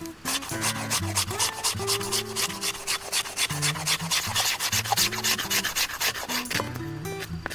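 Wood being scraped by a hand tool in fast, even strokes, about six a second, with soft guitar background music underneath.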